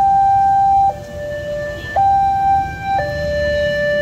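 Railway level-crossing warning alarm sounding its electronic two-tone chime, alternating a higher and a lower note about once a second, over a low background rumble.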